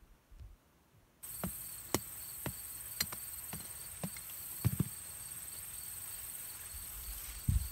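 A hammer knocking at the soil in a string of sharp taps, about two a second, with a double knock near the middle and a heavier thump near the end. Field insects drone steadily underneath, starting suddenly about a second in.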